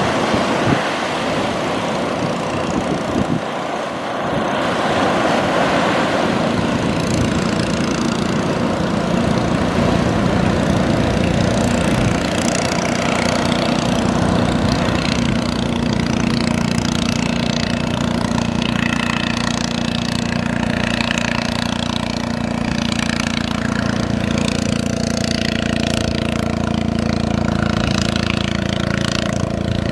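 Outboard motor of a small fishing boat running steadily as the boat comes in through the surf, setting in about four seconds in after a stretch of surf and wind noise.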